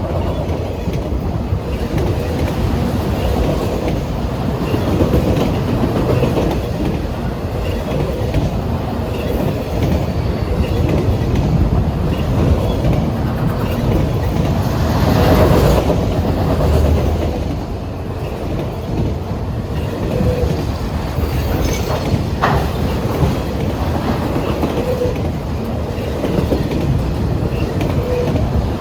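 Freight train rolling past: a steady rumble of the cars' wheels on the rails, with a brief thin squeal about three-quarters of the way through.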